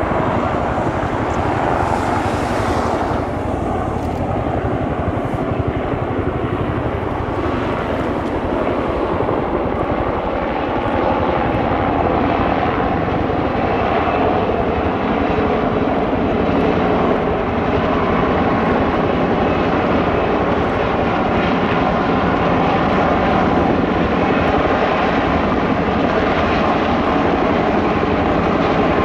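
A Sikorsky UH-60 Black Hawk and a Bell UH-1 Huey helicopter flying by together: steady rotor and turbine noise, loud and unbroken throughout.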